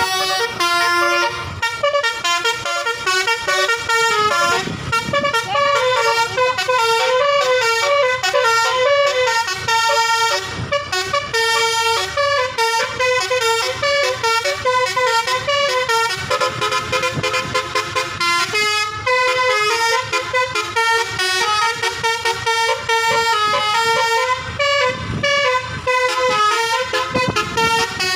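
Basuri multi-tone electric telolet horn, driven by a DAV tune module, playing a fast melody of quickly changing notes without a break.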